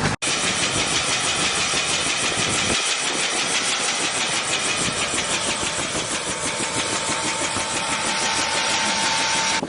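An engine running steadily with a fast, even pulsing, after a brief dropout just at the start.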